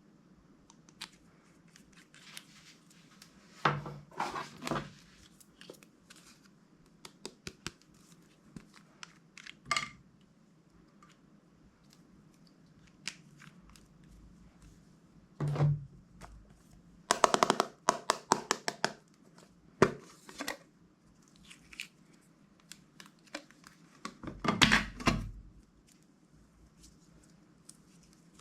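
Slime being worked by hand: bursts of crackly clicking and popping, with the longest run of rapid clicks a little past the middle and another burst near the end.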